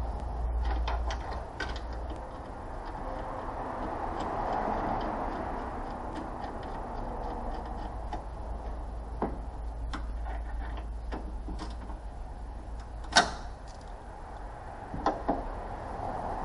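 Scattered light clicks and knocks of hand work on a car's radiator installation, with one sharp clack about 13 seconds in and two more near the end, over a steady low hum.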